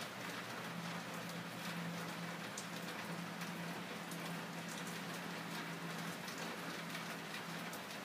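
Steady background hiss with a constant low hum and faint scattered light ticks, like light rain or room noise.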